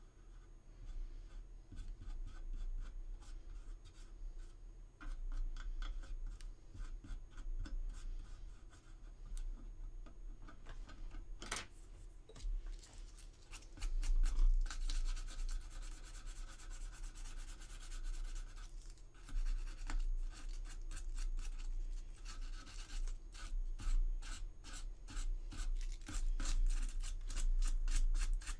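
Hand sanding a filled seam on a cast resin model with a small piece of sandpaper held in the fingers: quick back-and-forth scratching strokes, busier and louder in the second half. One sharp click a little before the middle.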